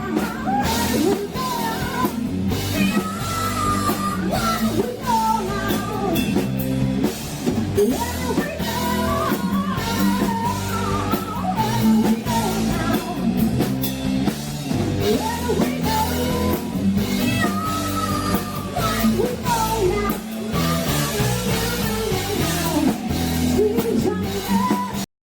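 Live rock band playing a song with a lead vocal over electric guitar and drum kit. The music cuts off suddenly near the end.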